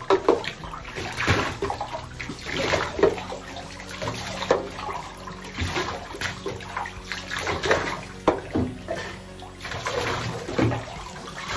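Water poured from a plastic cup over a small dog's wet coat in a bathtub, splashing into the tub in uneven spurts several times.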